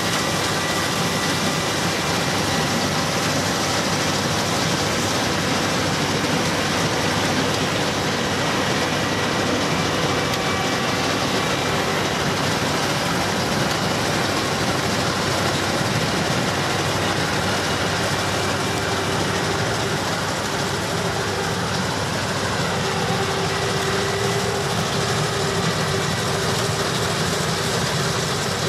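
Claas Lexion 760 TerraTrac combine harvester running under load while harvesting peas: a steady mechanical din of engine and threshing machinery. A low hum within it grows stronger in the second half.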